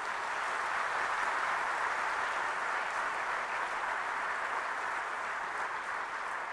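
Large audience applauding, a steady round of clapping.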